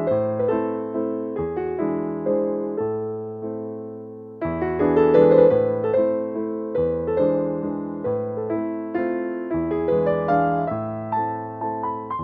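Background music: a soft, slow piano piece, notes struck one after another and left to ring and fade, with a new phrase beginning about four and a half seconds in.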